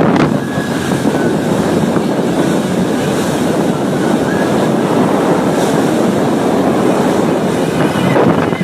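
A machine running steadily, with a loud, even rushing noise.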